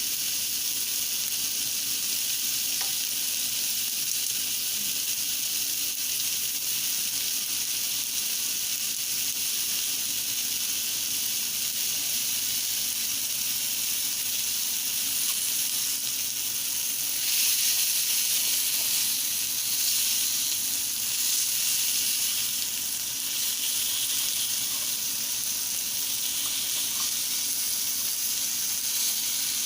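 Seasoned chicken sizzling in a hot pan as it chars, a steady frying hiss that swells louder for a few seconds past the middle.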